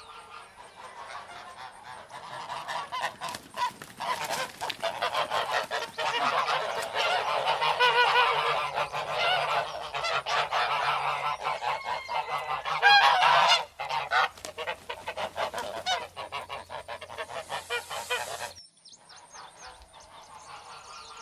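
A flock of domestic geese honking, many overlapping calls that build over the first few seconds and are loudest about two-thirds of the way through. The calling cuts off abruptly near the end, leaving only fainter calls.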